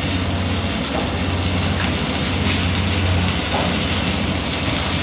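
Arc welding: a steady crackling, frying hiss over a constant low hum from the welding machine.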